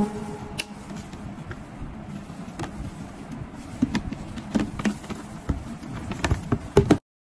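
A collapsible bucket being pulled open by hands in plastic gloves: scattered light knocks and clicks from its folding walls over a soft rustle of handling. It stops abruptly near the end.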